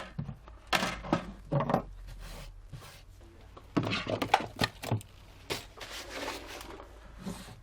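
Broken digitizer glass being cleared off a work surface: scattered clinks, scrapes and light knocks of glass shards.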